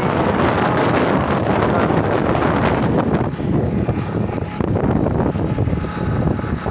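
Wind buffeting the microphone: a loud, rough rumbling rush that eases slightly about halfway through.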